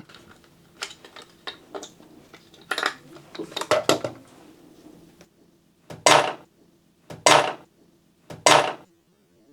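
Small metal parts and a hand tool clinking and knocking while an M.2 SSD is fitted into a PC, with three louder, short scrapes evenly spaced near the end.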